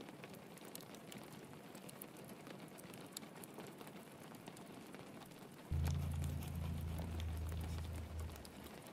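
Steady rain patter mixed with the light crackle of a log fire. Nearly six seconds in, a deep low hum starts suddenly and fades out about two and a half seconds later.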